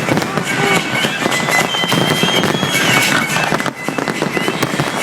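Fireworks display: a dense, unbroken run of bangs and crackles, with a few high whistling tones rising and falling over it.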